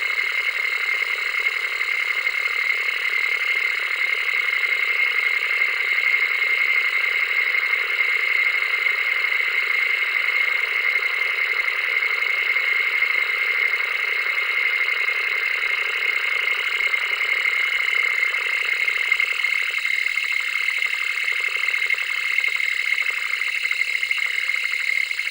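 Old analog TV static: a steady, hissing noise with a thin, high edge and no bass.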